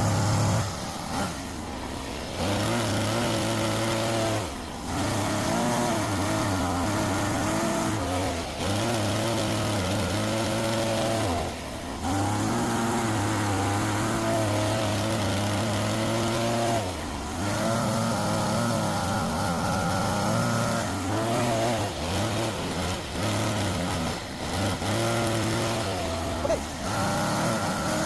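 Homemade RC excavator's motor running continuously, its pitch rising and falling as it works, with short dips every few seconds.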